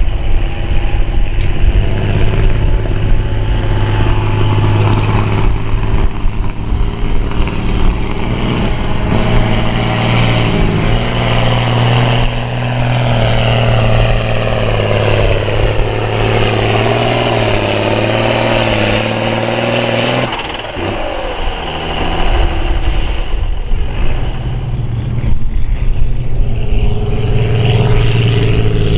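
Farm-class pulling tractor's diesel engine running hard under load, a heavy steady drone with a whine that shifts in pitch through the middle. It drops off suddenly about twenty seconds in, then builds up again.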